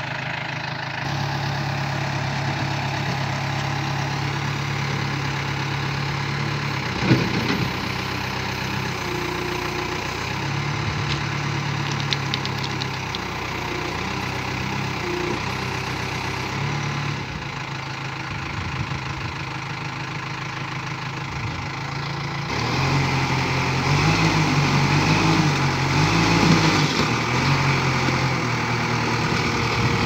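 Bobcat B900 backhoe loader's diesel engine running at a steady, low speed, with one brief knock about a quarter of the way in. In the last quarter it runs louder and more unevenly, its note wavering up and down.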